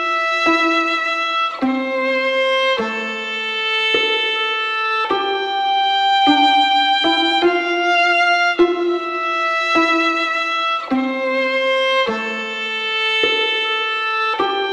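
Music: a slow violin melody, each note held for about a second in an even pulse.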